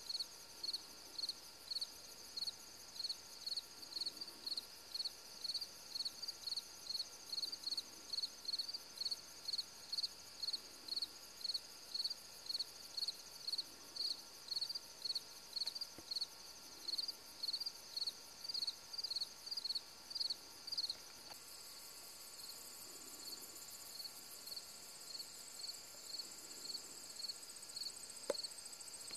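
Evening chorus of insects, crickets or katydids, chirping in a steady, even rhythm at about two to three chirps a second. About three quarters of the way through, the chirping fades under a continuous, higher-pitched trill.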